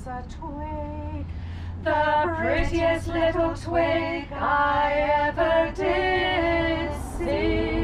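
A woman singing unaccompanied, a slow held melody, growing louder about two seconds in.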